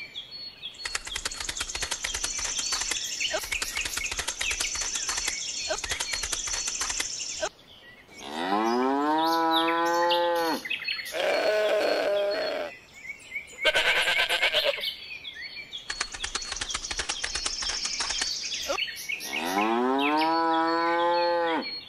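A cow mooing twice, about eight seconds in and again near the end, each one long call that rises and then falls away. Between the moos there is a high, rapid chirring.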